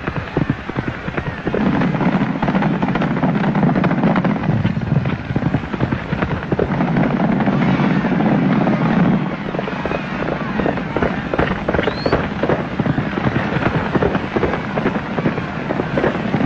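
Racehorses galloping on a dirt track: a dense, rapid drumming of many hoofbeats. A steady low rumble runs under it for two stretches, and a brief rising whistle sounds about twelve seconds in.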